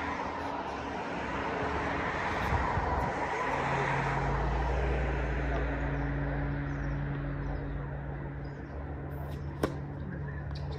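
A motor vehicle running nearby. Its low engine rumble swells about four seconds in and then eases off, and there is a single sharp knock near the end.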